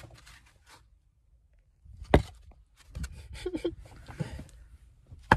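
Molded pulp cardboard packaging being handled and rubbed against the phone, with scattered crackling and scraping and two sharp knocks, one about two seconds in and a louder one near the end.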